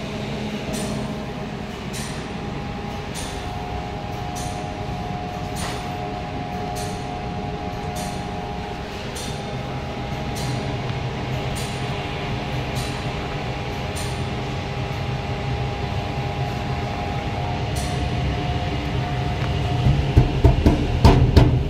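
ITECH SP-C350LF dip soldering machine running on test, with the steady whir and hum of its 150 mm AC exhaust fan and light ticks about once a second. Near the end, several loud handling thumps.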